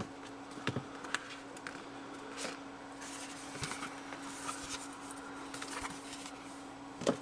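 A cardboard iPad mini box being opened by hand: the lid is slid off the base, with soft scraping and rustling of the cardboard and light taps. A few taps come in the first second or so, and a cluster of knocks comes near the end, over a steady low hum.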